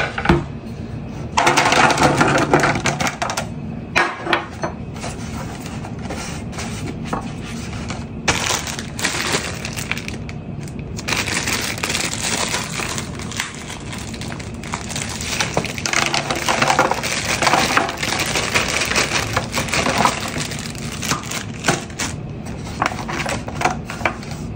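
Chunks of raw potato tumbling and clattering into a disposable aluminium foil pan in one loud dump about a second and a half in. From about eight seconds in there is a longer run of clatter as baby carrots are poured in from their plastic bag and spread around the pan by hand.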